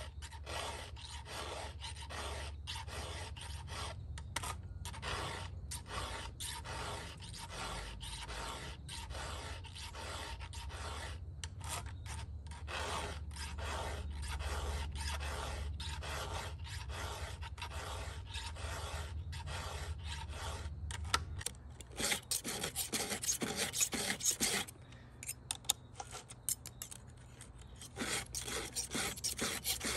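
Hand filing of a skip-tooth chainsaw chain on a McCulloch Mac 125: a round file rasps across the cutters in steady, evenly spaced strokes. About two-thirds of the way through come quicker runs of flat-file strokes across the depth gauges, with a pause between them.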